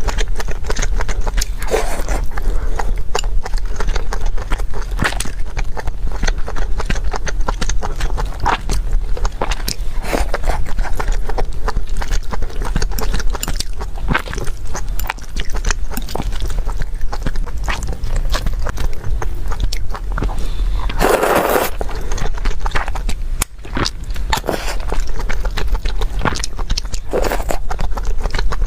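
Close-miked eating: steady chewing and biting with many small wet mouth clicks, and a louder noisy burst about two-thirds of the way through.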